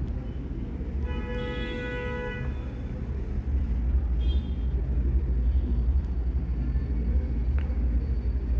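Jack industrial sewing machine running, stitching a seam along the edge of the fabric, with a steady low drone that gets louder from about three and a half seconds in. A brief horn-like toot sounds about a second in, and a shorter one comes near the middle.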